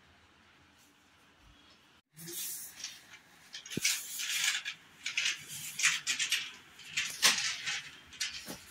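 Irregular rustling and scraping of an insulated copper AC pipe being uncoiled and slid along a hard floor, beginning about two seconds in after near-quiet room tone.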